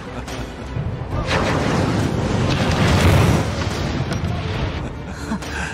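Film sound effect of a huge winged flying ship lifting off: a deep rumbling whoosh that swells to a peak about three seconds in, then fades.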